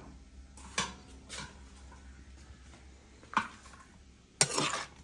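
A metal spatula clinking and scraping against a steel pan and bowl as food is scooped out: a few light knocks, then a louder scrape near the end.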